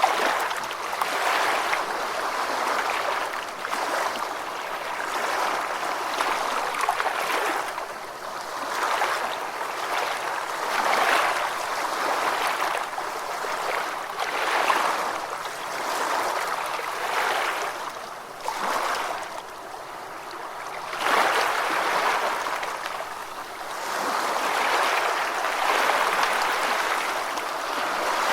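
Gentle ocean waves washing onto a beach: a steady wash of surf that swells and recedes every two to four seconds.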